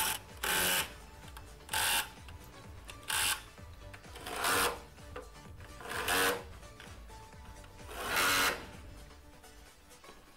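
Cordless drill with a socket bit spinning the engine-mount bolts in on a Renault Clio 1.6 16V, in six short bursts of a fraction of a second each, the last one the longest.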